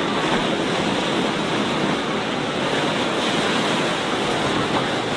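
Sea waves washing steadily onto a beach, a continuous rush of surf, with the faint distant voices of bathers mixed in.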